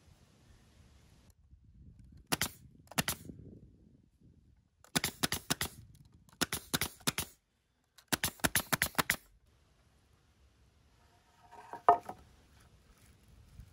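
Nail gun firing fasteners through an OSB gusset plate into a wooden truss joint: four quick volleys of sharp shots, three to six in each. A single thump near the end.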